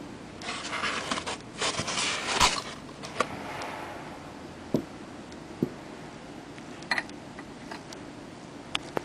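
Handling noise: a scraping rustle for about two seconds as a white box is moved on the table, then a few light separate clicks and knocks as parts of the button wrapping machine are handled.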